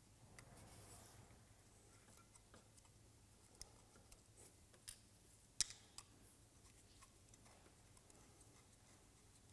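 Small screwdriver undoing the faceplate screws on a GPS tracker module: faint scattered ticks and clicks of the tip on the screws, the loudest about five and a half seconds in.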